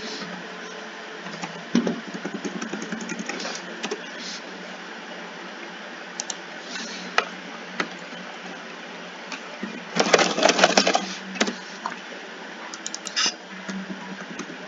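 Scattered sharp clicks over a steady hum, with a dense run of rapid clicking about ten seconds in and a shorter run near the end.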